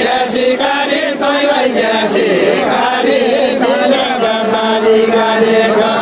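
Nepali deuda folk song sung by a group of voices together, with long held notes.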